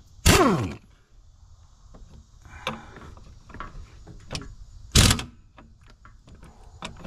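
Impact wrench with a 1-inch deep socket fired in two short bursts, one just after the start and one about five seconds in, each falling in pitch as it spins down. It is working loose a tight fitting that would not turn with a hand wrench. Faint clicks and handling noise come between the bursts.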